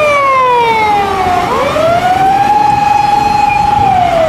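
Emergency vehicle's electronic wail siren, fitted to a Japanese emergency doctor car. Its pitch slides slowly down, sweeps back up about a second and a half in, holds, then starts falling again near the end.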